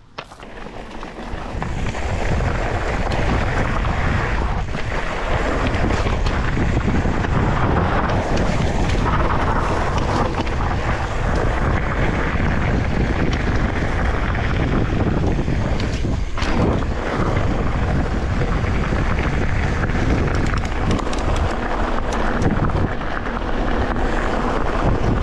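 Wind buffeting a GoPro's microphone on a moving mountain bike: a dense rushing noise that builds over the first two seconds, then stays steady.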